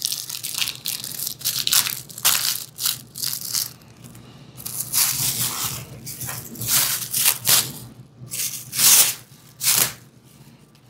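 Clear plastic packaging crinkling and rustling as it is handled and pulled open, in irregular bursts of crackle.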